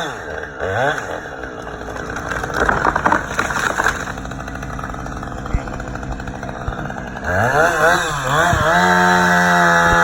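Two-stroke chainsaw cutting into a large tree. The engine drops from full revs and labours under load in the cut, then revs up and down a few times and settles back to steady high revs near the end.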